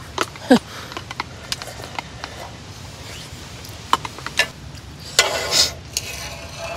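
Sipping and swallowing broth from a metal camp bowl, with a short falling gulp about half a second in and small clicks scattered throughout. A brief rush of breathy noise comes about five seconds in.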